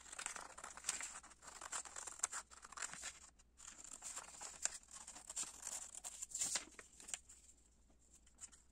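Scissors cutting through a sheet of paper in a run of irregular short snips, with the paper rustling as it is turned; the snipping stops near the end.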